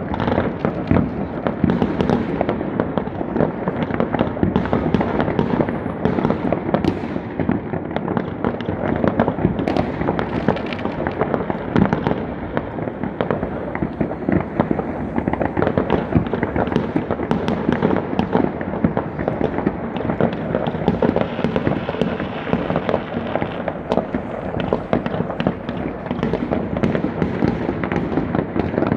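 Many fireworks and firecrackers going off at once across a town: a dense, unbroken crackle of overlapping bangs and pops with no pause.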